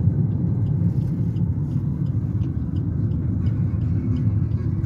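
Steady low rumble of a moving car heard from inside the cabin: engine and tyre road noise while driving.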